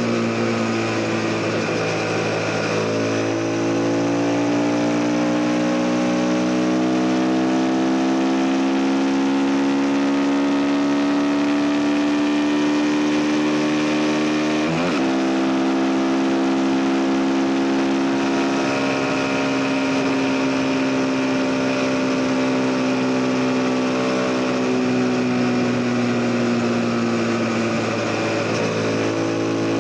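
CF Moto 250NK motorcycle's single-cylinder engine running under way, heard with wind rush. Its pitch climbs slowly for a long stretch, jumps sharply about halfway through, then eases slowly down.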